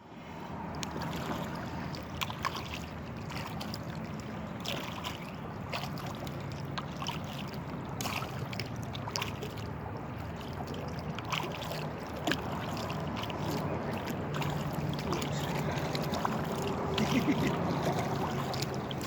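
Kayak moving on open water: a steady wash of water along the hull with scattered small clicks and knocks.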